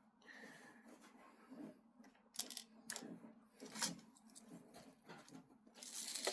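Faint scattered clicks and rattles of .177 steel BBs being poured into the BB reservoir of a Crosman M4-177 rifle, with a few sharper clicks in the middle; a rustle of handling starts near the end.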